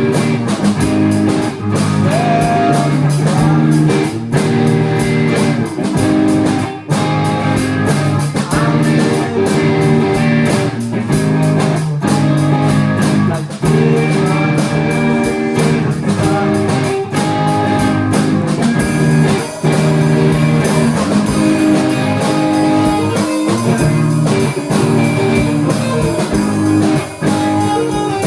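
Live band playing an instrumental passage of a rock song: guitar-led, with drum hits throughout.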